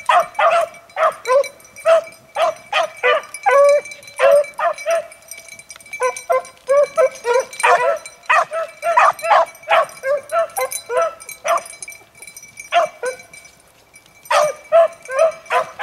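A pack of beagles baying on a rabbit's trail: short, high yelping cries from several hounds, several a second and overlapping. They fall quiet for a couple of seconds near the end, then start up again.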